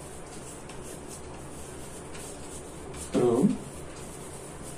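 Chalk writing on a blackboard, faint scratching and tapping strokes, with one short spoken word a little over three seconds in.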